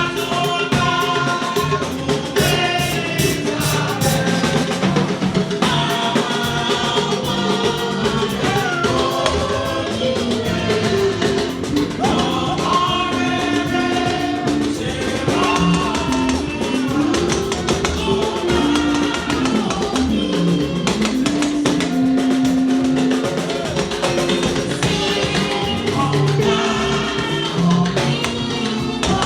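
Church hymn sung in Yoruba with drum kit and percussion accompaniment.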